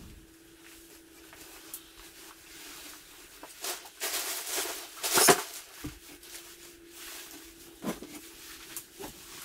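Rustling and crinkling of fiberglass batt insulation being pulled from a hole in a wall and pushed into a plastic bag, in short irregular bursts with a louder crackle about five seconds in.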